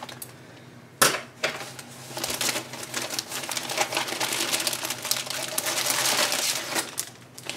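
A sharp click about a second in, then dense, rapid crackling and crinkling of paper wrapping and a clear plastic sleeve being pulled open around a packed plant. The crackling stops shortly before the end.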